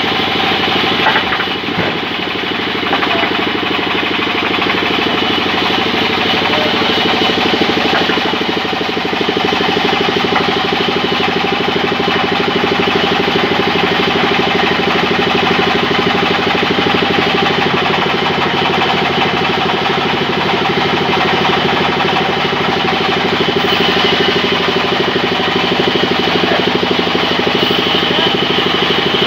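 Belt-driven sawmill running steadily, its drive and saw making a loud, unchanging mechanical drone.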